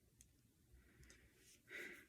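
Near silence between knuckle cracks: a faint small click from the hands, then a brief soft rustle near the end.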